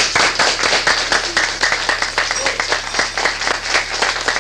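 Audience applauding, many hands clapping together, over a steady low hum.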